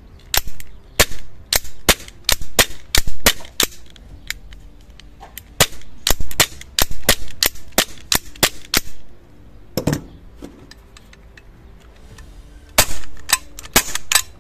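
6mm gas-blowback airsoft Glock 17 replica pistol firing in three quick strings of sharp cracks, each shot cycling the slide. There is a duller thump about ten seconds in.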